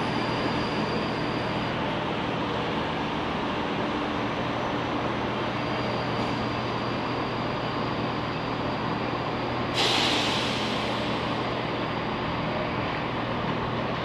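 Class 334 Juniper electric multiple unit running slowly along the platform as a steady rumble. About ten seconds in comes a sudden sharp hiss of air that fades over a second.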